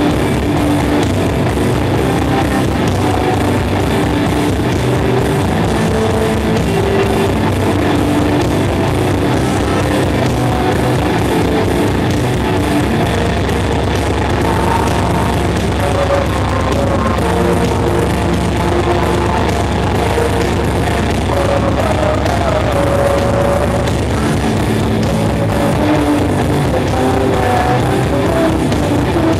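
Melodic metal band playing live: electric guitars carrying a melody over drum kit, with very fast, steady drumming in the low end.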